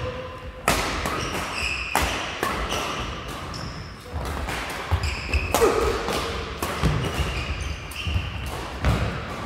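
Badminton rally: sharp cracks of rackets striking the shuttlecock about once a second, echoing in a large hall, with short squeaks of court shoes on the floor between shots.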